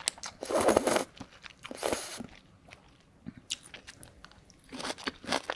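Close-miked slurping of corn noodles from spicy mala tang broth, two noisy slurps in the first two seconds, followed by chewing and wet mouth clicks, with more eating noises near the end.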